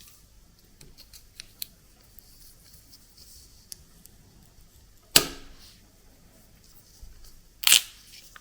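A 3D-printed washi tape cutter being tried on washi tape: small clicks of handling, then two sharp, louder cutting or tearing sounds, one about five seconds in and a longer one about two and a half seconds later.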